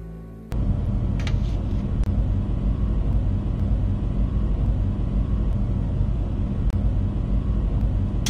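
Soft music cuts off about half a second in, replaced by a blacksmith's forge fire burning with a loud, steady low rumble, with a few faint clicks.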